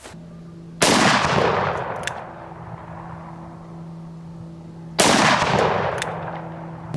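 Two shots from a Magnum Research BFR revolver chambered in .30-30 Winchester, about four seconds apart, each a sharp report that rolls away over a second or two.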